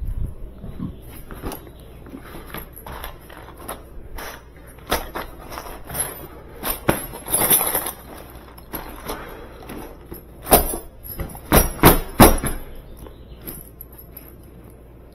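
A series of irregular clicks and knocks, with the loudest ones bunched together late on.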